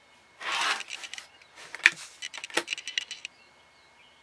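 Rotary cutter slicing through a paper-backed layer of fabric along a ruler, a short rasping stroke about half a second in, followed by a run of sharp clicks and taps.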